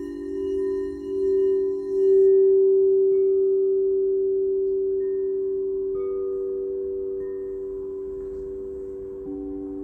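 Several singing bowls ringing together in low, overlapping tones. The sound swells three times in the first couple of seconds, then slowly dies away, and fresh tones join about six seconds in and again near the end.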